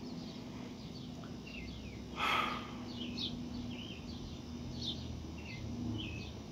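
Small birds chirping and calling on and off, short high chirps scattered throughout over a faint steady hum. A brief breathy whoosh comes a little over two seconds in.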